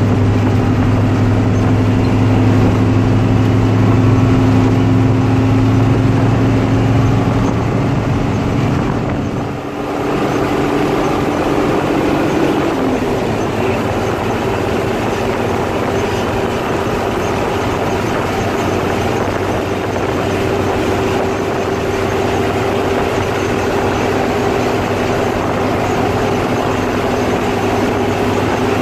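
Hino 1J bus diesel engine pulling hard on the highway. Its pitch climbs slowly, drops briefly about ten seconds in, then holds a steady, higher drone.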